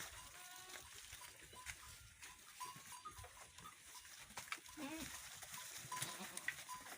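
Goats and kids in a pen bleating faintly now and then, with a few short calls among scattered small knocks and rustles.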